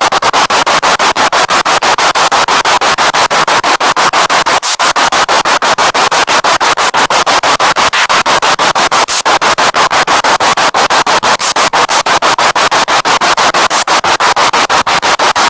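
Spirit box radio sweeping through stations: a loud burst of static chopped evenly and rapidly, many times a second, as the scan steps from channel to channel.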